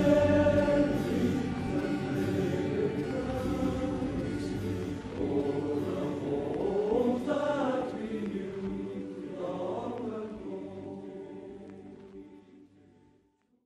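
Male voice choir singing in a sampled, layered soundtrack, fading away over the last few seconds.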